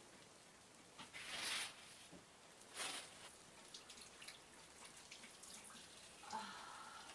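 Faint water in a bathroom sink: two short splashes about one and three seconds in, then a few small drips.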